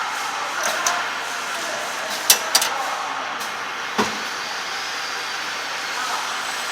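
Steady hiss of factory machinery, broken by a few sharp clicks and knocks, two of them close together about two and a half seconds in and another about four seconds in.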